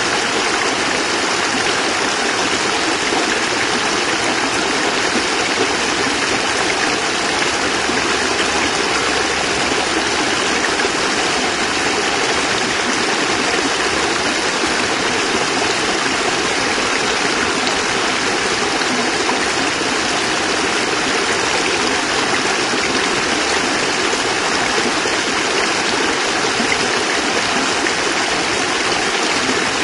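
Small cascade of water splashing and rushing steadily, an even, unbroken sound of falling stream water.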